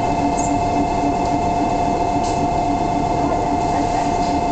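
Electric railcar (Ohmi Railway Moha 223) standing at a platform, its onboard equipment humming with a steady whine and a pulsing lower hum beneath. There is no wheel or rail noise: the train is stopped.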